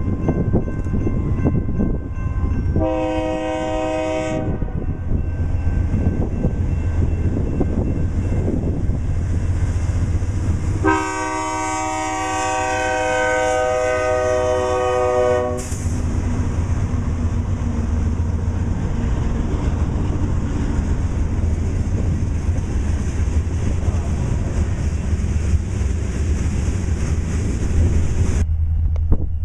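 Diesel freight locomotive's multi-tone air horn sounding twice, a short blast about three seconds in and a long blast of about four and a half seconds starting around eleven seconds. Between and after the blasts come the steady rumble of the locomotives and the wheels of the freight cars passing.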